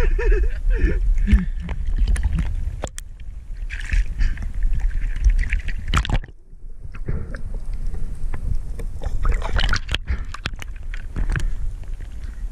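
Seawater sloshing and splashing against a GoPro at the ocean surface, with many small knocks and clicks, muffled briefly just after the middle as the camera dips under.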